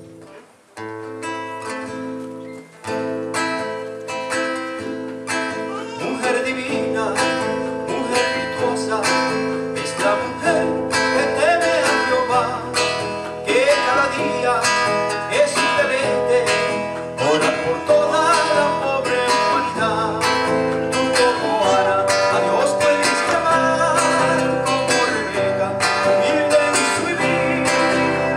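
Live acoustic guitar strummed with keyboard accompaniment, playing a slow song. It starts softly after a brief pause and fills out about six seconds in.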